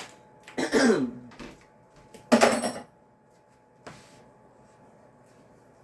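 A woman coughing twice, first about half a second in and again about two and a half seconds in, short and loud.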